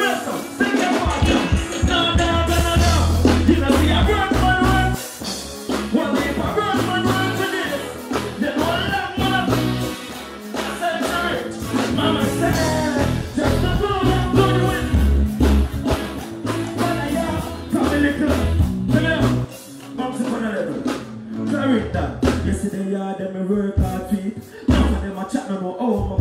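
Live dancehall performance: a man singing into a microphone over a loud backing track with a heavy bass beat, through the stage PA. The bass drops out briefly twice in the second half.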